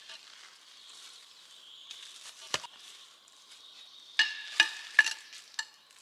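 Shovel digging in forest soil and dry leaf litter: faint scraping and crackling, with one sharp knock about two and a half seconds in and a run of short pitched clinks near the end.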